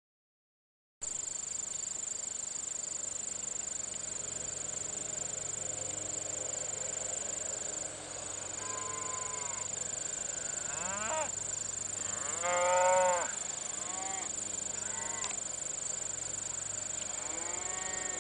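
Herd of black beef cows and calves mooing and bawling as they come across the pasture: a handful of separate calls from about halfway through, the loudest a little later, over a steady high hiss.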